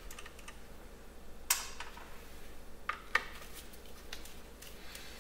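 Faint metallic clicks and clinks of a T25 Torx screwdriver working small Torx screws out of a plastic coolant-line mount, the sharpest click about one and a half seconds in and two more close together near three seconds.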